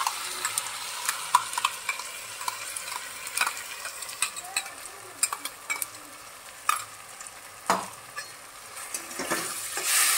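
Onions and a fresh garlic-chilli-ginger-tomato paste sizzling in hot mustard oil in a wok, with a metal spoon scraping the paste out of its container and a steel spatula clicking and scraping against the pan as it is stirred in. This is the start of frying the masala. The sizzle grows louder near the end as the paste spreads into the oil.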